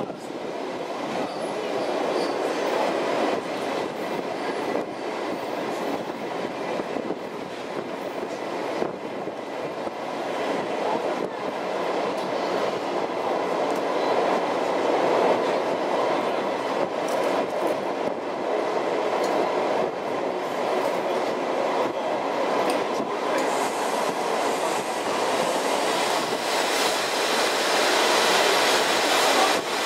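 Passenger carriage of a steam-hauled train rolling into a station, heard through an open window: a steady rumble of wheels on rails with clacks over the rail joints. A brighter hissing noise joins in about two-thirds of the way through.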